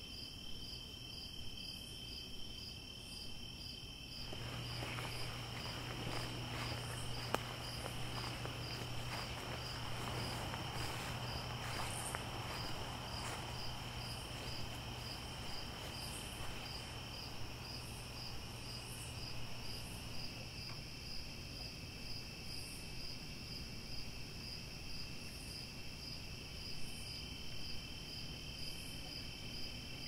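Night chorus of crickets and other insects: a steady, evenly pulsing high trill, with a higher call repeating every second or two. From about four seconds in to about twenty, a low hum and a faint rustling noise are heard under the chorus.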